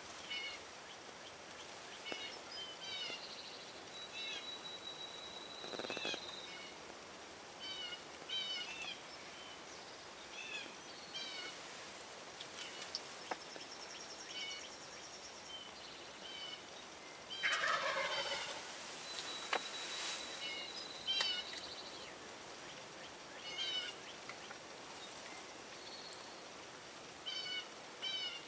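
Wild turkey gobbling, with one loud gobble a little past halfway, while small birds chirp and whistle throughout.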